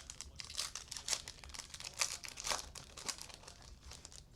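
Baseball cards being handled and flipped, with crinkling and rustling of plastic packaging in a quick, irregular run of sharp rustles and clicks.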